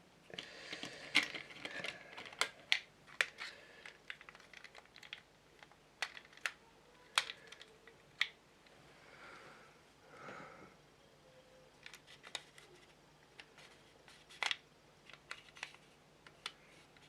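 Small plastic model-kit parts being handled and test-fitted with a bit of tape: scattered light clicks and taps at an uneven pace, with a couple of soft rustles in the middle.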